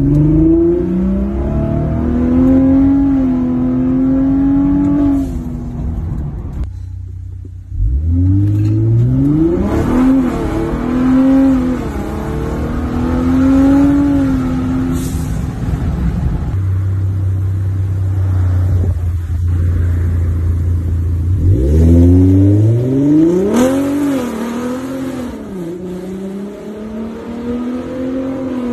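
Ford F-150 3.5L twin-turbo EcoBoost V6 through a dual Raptor exhaust (Raptor downpipes, resonator delete, factory Raptor muffler, turndown tips), accelerating hard several times. The engine note climbs and falls through each pull, with a steadier low drone in between, mostly heard from inside the cab.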